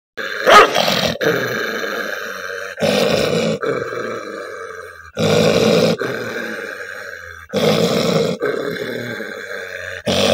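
A dog growling and snarling in aggression, a run of about eight growls back to back, one per breath. Each starts abruptly and fades, with a louder burst about half a second in. It is a warning at the people at the cage, a dog that becomes tempered as soon as his name is called.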